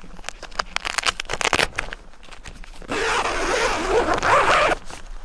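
The door zipper of a Quechua MH100 tent being pulled open. A quick run of rasping strokes comes first, then a longer, louder rasp from about three seconds in.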